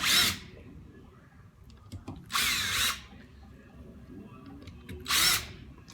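Power drill run in three short bursts, spinning up and down, backing out fasteners on a pump housing.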